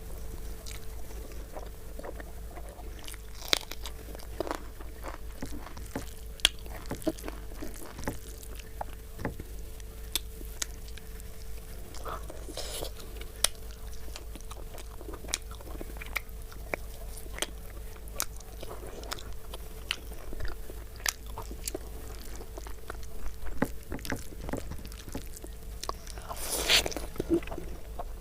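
Close-miked eating of chicken curry with rice: steady chewing with many small wet clicks and smacks, and a few louder crunching bites. A faint steady electrical hum runs underneath.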